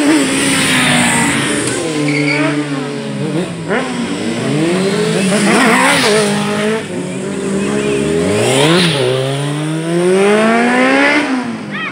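Sport motorcycle engines revving hard up and down, with repeated rising whines that drop off sharply. One bike passes close by about six seconds in.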